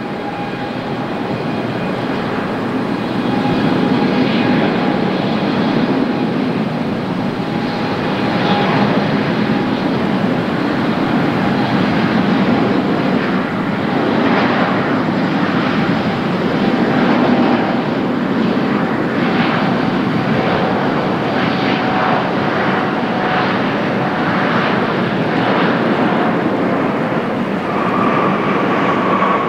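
Airbus A350-900 airliner's Rolls-Royce Trent XWB jet engines running at taxi power as it taxis out for departure: a steady jet rumble with a thin whine, growing louder over the first few seconds. A higher whine comes in near the end.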